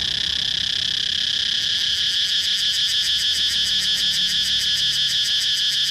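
Cicadas chirping: a steady high buzz, joined about a second and a half in by a fast pulsing call of about eight pulses a second that eases off near the end.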